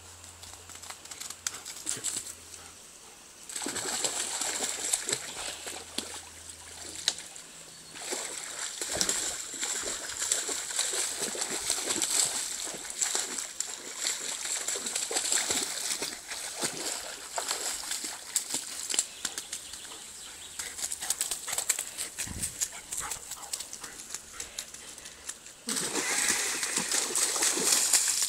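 Water splashing and sloshing as an Old English sheepdog wades and plays in a shallow muddy stream. It comes in uneven spells and is loudest near the end.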